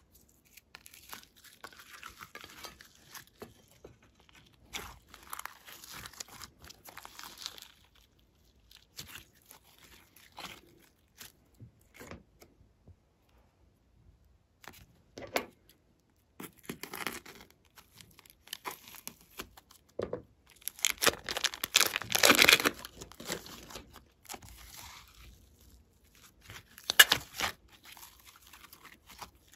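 Slime being peeled, squeezed and stretched by hand, close to the microphone: irregular bursts of sticky handling noise, loudest about two-thirds of the way through and again near the end.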